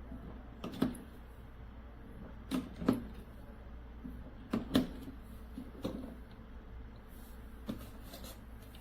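Short sharp knocks and clacks at irregular intervals, several in close pairs a fraction of a second apart, over a low steady hum.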